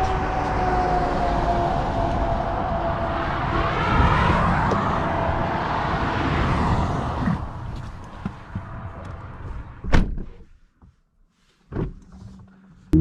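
Porsche Taycan Turbo S electric car driving: a motor whine that glides slightly down over road noise, swelling about four seconds in and dropping away after about seven seconds. Then a few clicks and two sharp thunks, about ten and twelve seconds in.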